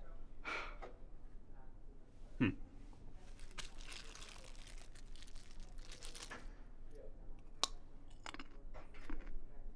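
Food wrapper crinkling and tearing, with crunchy bites and chewing of snack food; the rustling is thickest in the middle.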